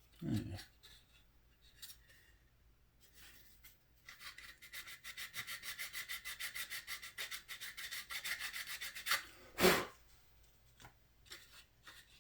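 Rapid back-and-forth dry sanding of hardened putty on a plastic scale-model car body, about eight short scratchy strokes a second for about five seconds in the middle, with a knock just after the start and a louder knock near the end.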